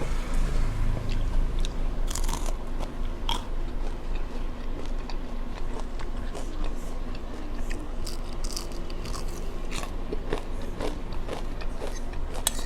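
Mouth eating sounds close to the microphone: irregular bites, crunches and wet chewing.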